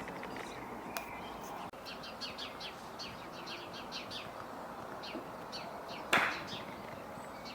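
Small birds chirping: a run of short, high, falling chirps, several a second, over steady outdoor background noise, with one brief loud noisy burst about six seconds in.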